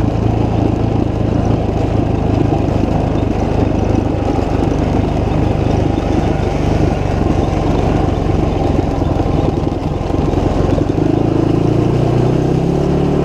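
Motorcycle engine running steadily under way, with a low rumble throughout; about eleven seconds in the engine note rises as it picks up revs.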